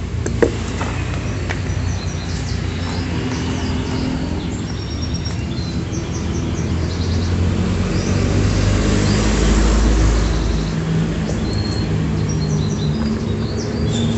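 A motor vehicle engine running close by, its low hum swelling about eight seconds in and easing off a few seconds later, with birds chirping over it. A single sharp click sounds just after the start.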